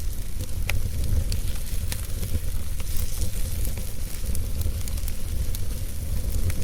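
Wood fire crackling and hissing, with scattered sharp pops (one stronger about a second in), over a steady low rumble.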